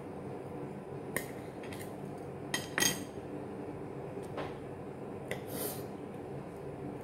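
Metal fork clinking and scraping on a plate while cutting into and picking up pancake: a handful of sharp clinks, loudest a little under three seconds in, over a steady low hum.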